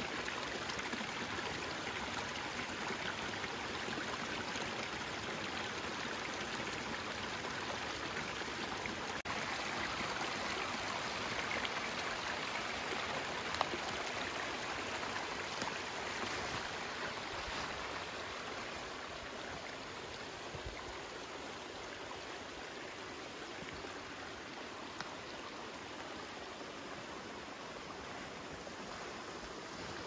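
Small forest brook rushing and splashing over mossy rocks in little cascades, a steady flow of water that grows slightly quieter a little past halfway.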